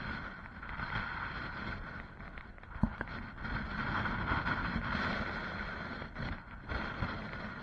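Wind buffeting the microphone of a moving body-worn camera: uneven rumbling noise that swells and dips, with one sharp knock about three seconds in.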